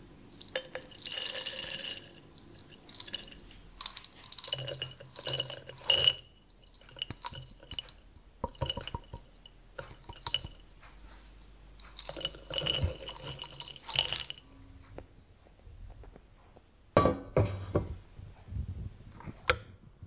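Handfuls of crumbled wax poured into a glass jar, the pieces rattling and clinking against the glass in four bursts a few seconds apart. Near the end come a few duller knocks.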